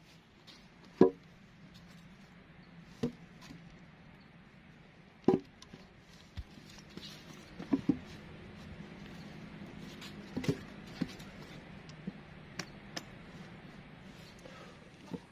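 Wood being chopped or struck with a tool: about ten sharp, irregular knocks a second or more apart, the loudest about a second in and again about five seconds in, with a quick double knock near eight seconds.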